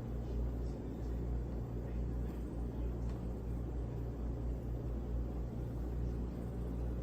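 Steady low hum and rumble with a few faint clicks, unchanging throughout.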